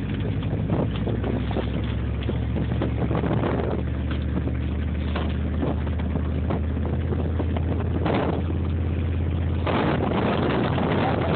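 Engine of the vehicle towing a round hay bale over snow, running steadily at a low, even drone, under an uneven rushing noise.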